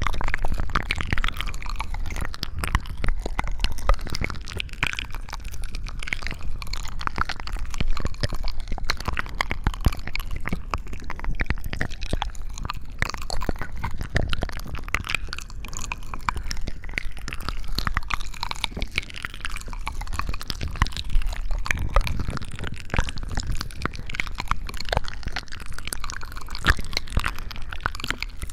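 Close-miked ASMR sounds: a continuous, dense run of fine wet crackling and crunching clicks.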